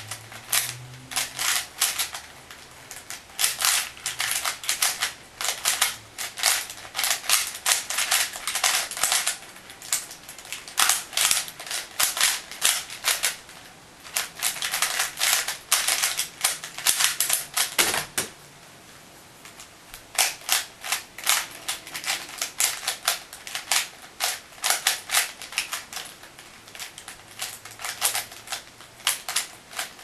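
A 3x3 Rubik's cube being turned at speed by hand: rapid bursts of plastic clicking and clacking as its layers turn, broken by brief pauses. A single harder knock comes a little past halfway; the turning stops for about two seconds, then the clicking picks up again.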